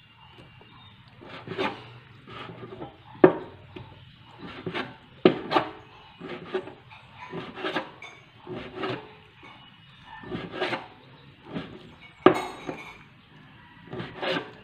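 Large kitchen knife slicing raw pork on a cutting board: irregular scraping strokes and knocks of the blade against the board, about one a second, a few of them sharper and louder.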